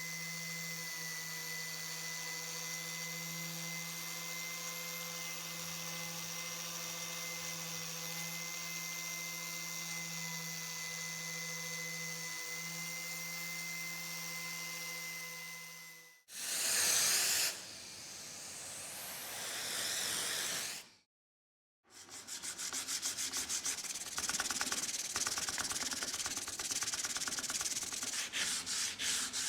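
A small power tool's motor running steadily, cutting off abruptly about sixteen seconds in. After a short gap, fast rubbing strokes of sanding run on to the end.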